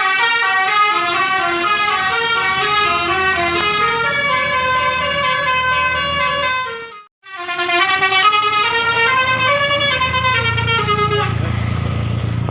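Telolet bus horn playing a quick multi-tone melody that steps up and down, in two phrases with a brief break about halfway through. The horn stops about a second before the end, leaving the bus's low rumble.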